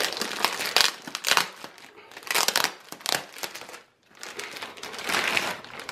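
Packaging crinkling and rustling in irregular bursts as a headrest pillow is unwrapped, with a brief pause about four seconds in.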